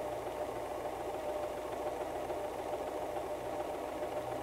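White 1735 sewing machine running at a steady speed, sewing a straight stitch through fabric: an even mechanical whir with one steady tone.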